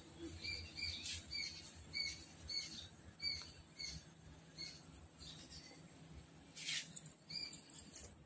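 A small bird chirping over and over, faint, with short high chirps coming about two a second. A couple of brief hissy rustles come about a second in and again about two-thirds through.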